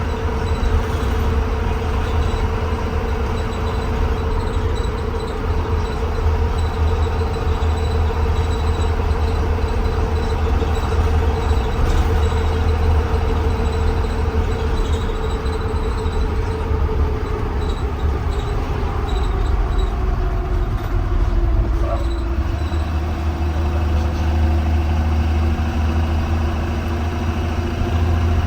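2020 Blue Bird Vision school bus running on the road, heard from inside the cabin: a steady low engine rumble with a whine over it. The whine drops in pitch about two-thirds of the way through as the bus eases off.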